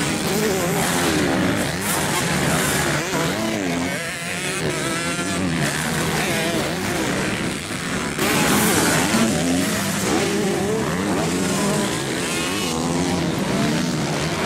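Several motocross bikes racing on a dirt track, their engines revving up and down over one another as they accelerate and take jumps. The engines are loudest about eight seconds in, as a bike passes close.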